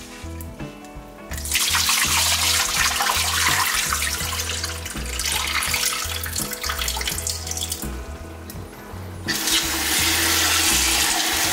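Water running from a kitchen tap and sloshing in a saucepan as rice is rinsed. It stops about eight seconds in and starts again a second or so later as the pot is refilled.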